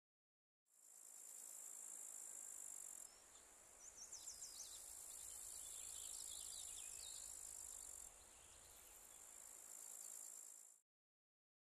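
Faint, steady, high insect chirring, with a cluster of quick chirps in the middle; it fades in just after the start and cuts off suddenly near the end.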